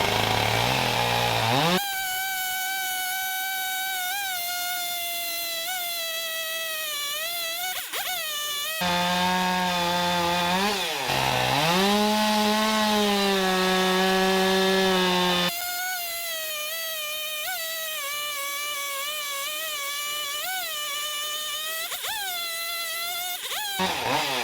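Chainsaw running at high revs while cutting lengthwise down through a log, its pitch dipping and recovering again and again as the chain bites. In the middle it settles for several seconds to a lower, steadier note, then climbs back.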